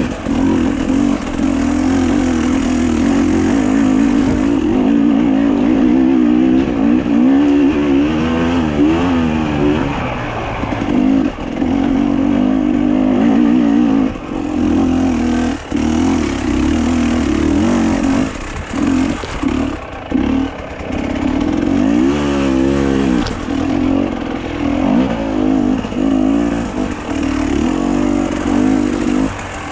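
A vehicle engine running while under way, its pitch wavering and rising and falling with the revs about 8 seconds in and again about 22 seconds in.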